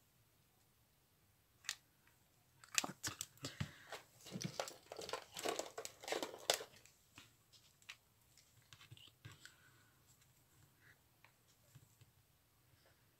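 Crinkling and rustling of craft materials and plastic packets being handled, a run of crackly clicks lasting about five seconds, then only a few faint ticks.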